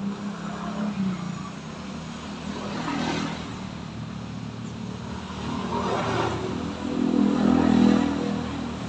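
Urban road traffic: several motor vehicles passing one after another, the loudest passing about seven to eight seconds in.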